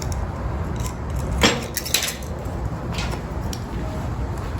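Oxy-fuel torch flame giving a steady low rushing, with a few sharp metallic clicks, the loudest about a second and a half in.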